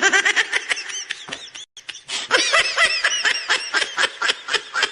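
A person laughing in a rapid run of giggling pulses, a laughter sound-effect clip, with a short pause about two seconds in.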